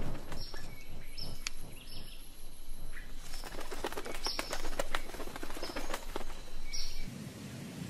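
Hummingbirds fighting at close quarters: fluttering wings with many short clicks, and short high-pitched chirps coming about once a second.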